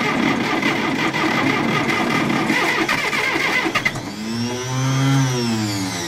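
John Deere 450 crawler loader's engine cranked by the starter on a cold start without ether, a rapid churning for about four seconds. Then it fires and hits once, revving up and dying away again: the cold engine catches only briefly and does not start.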